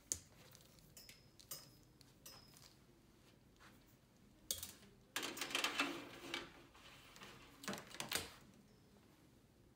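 Faint handling noise from hands working at a powered speaker's input panel. There are a few light clicks early on, each with a brief thin metallic ring, then a burst of rustling and rattling about five seconds in, and two more clicks near eight seconds.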